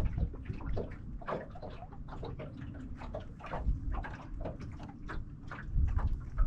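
Wind gusting on the microphone, strongest near the end, over irregular light ticks and splashes of water around the boat.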